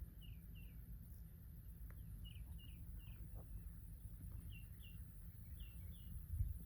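Faint outdoor ambience: short high chirps, mostly in pairs, repeating every second or so over a steady low rumble.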